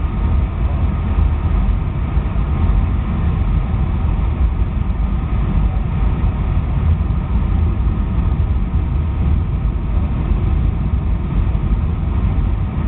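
Steady cabin noise inside a Boeing 757-200 descending on approach to land: engine and airflow noise, heaviest in the low end, with faint steady tones above it.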